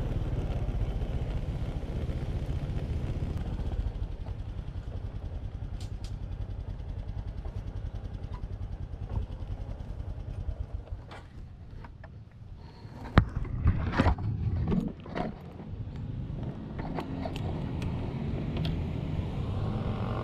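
Honda motor scooter's engine running at low speed, fading down about eleven seconds in. A burst of sharp knocks and clatter follows, the loudest sounds here, then the engine runs on steadily.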